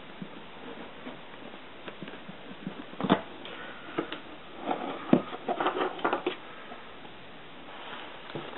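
Handling noises from a corrugated-plastic model yacht hull being taped by hand: a few sharp knocks against the bench and a flurry of crinkling and rubbing of tape and plastic from about three to six seconds in.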